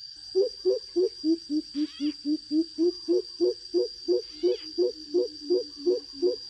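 Greater coucal (bìm bịp) calling, a long run of deep hollow hoots at about three and a half a second, used as a trapping lure call. A steady high whine and a few short falling high calls sit underneath.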